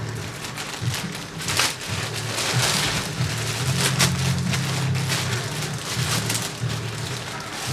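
White plastic courier mailer being crinkled and torn open by hand: a dense, irregular crackling and rustling of thin plastic.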